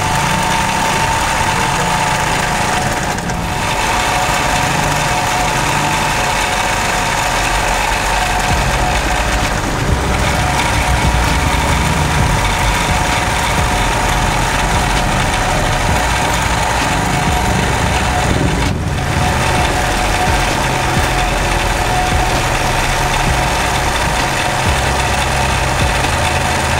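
Simaru SM-20U73 industrial zigzag sewing machine running steadily at speed while stitching a decorative zigzag pattern, pausing for a moment three times.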